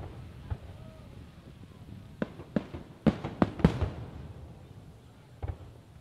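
Fireworks shells bursting in the sky: scattered sharp bangs, with a quick run of four or five reports about three seconds in, the loudest part, and one more near the end.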